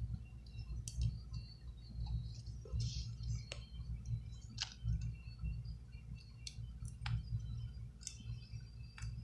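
Scattered small sharp clicks and ticks of precision tools (screwdriver, tweezers, pry tool) working on an iPhone 6 Plus screen assembly, coming at irregular moments, over a steady low hum.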